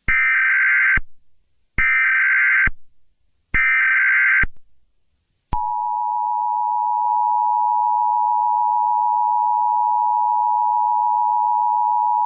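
Emergency Alert System tones: three SAME header data bursts, each a harsh warbling screech about a second long with short gaps between them, then about five and a half seconds in the steady two-tone EAS attention signal starts and holds.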